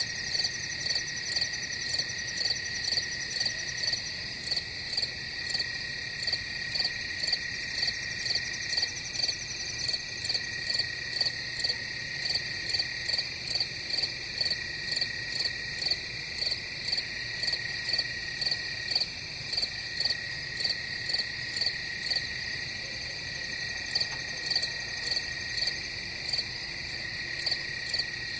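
Night chorus of crickets: regular high chirps, about two or three a second, over a steady high trill.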